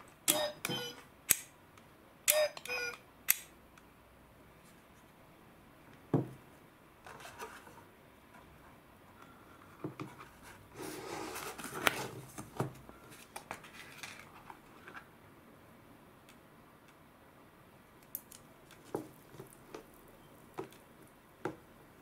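Close handling sounds with no talking. A foil-lined snack bag crinkles in a few sharp bursts, and a single knock follows. There is a longer rustle as the paper lid is pulled back from an instant udon cup, then a few light taps of plastic chopsticks against the cup near the end.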